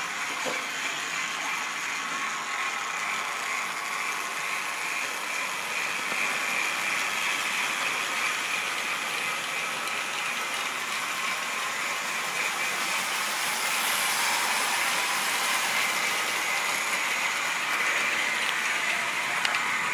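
OO-gauge model train running on the layout: the locomotive's small electric motor and its wheels on the track make a steady mechanical running noise, slightly louder in the second half.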